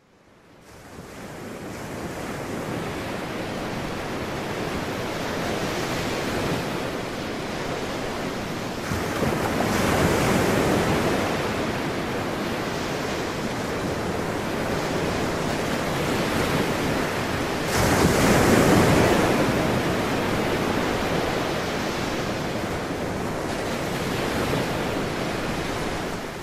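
Ocean surf breaking against rocky sea cliffs: a steady wash of water that fades in. It swells into louder crashes of breaking waves about ten seconds in and again about eighteen seconds in, then fades out.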